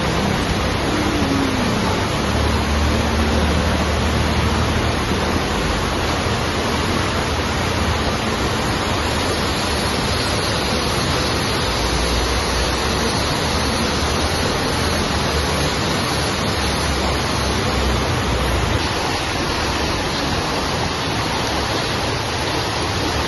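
River water rushing over small rapids: a steady, even noise with no break.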